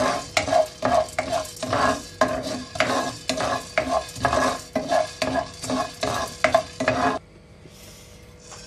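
A spatula stirring peppercorns dry-roasting in a granite-coated nonstick pan, with quick rhythmic scraping strokes about two or three a second. The strokes stop about seven seconds in, leaving only a faint steady hum.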